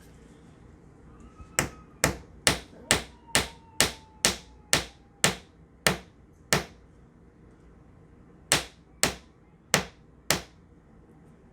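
Hammer tapping a glued wooden dowel into a stripped hinge screw hole: about a dozen sharp taps at roughly two a second, a pause of about two seconds, then four more.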